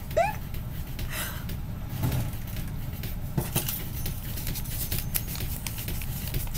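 Paper banknotes being handled: light scattered rustles and clicks over a steady low hum, with a short vocal sound right at the start.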